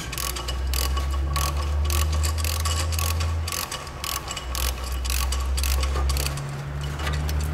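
Hand ratchet clicking in quick runs as it drives a Tite-Reach extension wrench, spinning out a rusted exhaust heat-shield bolt on an 11 mm socket, over a steady low hum.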